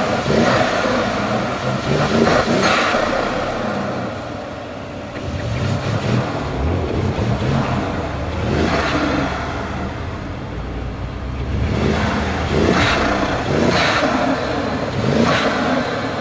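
The van's swapped-in 4.0-litre twin-turbo AMG V8 running with the hood open and being revved in several short blips, the pitch rising and falling with each one.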